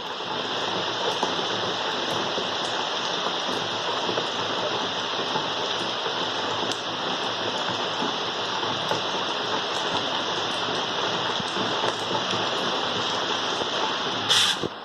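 Steady rain falling on a surface, an even hiss with scattered drop ticks. A brief louder burst comes near the end.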